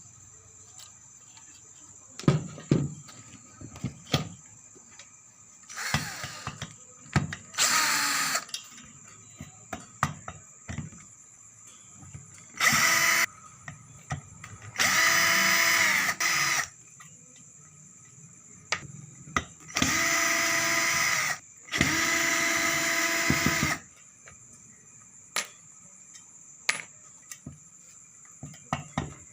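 Electric screwdriver or drill backing screws out of a power amplifier's metal case: several short motor runs of one to two seconds each, with clicks and knocks of handling between them.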